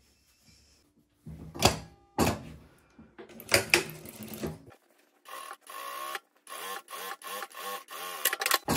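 Industrial straight-stitch sewing machine stitching in short runs with brief stops as the fabric is fed through. It starts about a second in.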